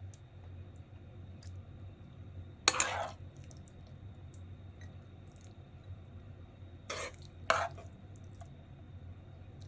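Kitchenware clattering in a small kitchen: one short knock about three seconds in and two more close together around seven seconds, over a low steady hum.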